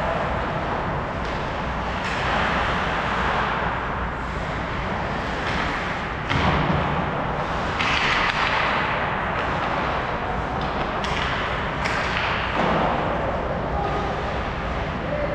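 Ice hockey play: skate blades scraping and carving on the ice in repeated swishing rushes, with a few sharp knocks from sticks and puck, the clearest about six seconds in and a couple near eleven to twelve seconds.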